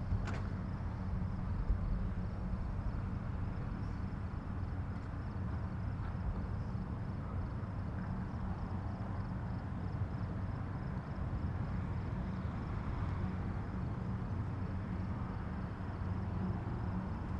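Outdoor forest ambience: a steady low rumble with a faint, even insect chirring high above it.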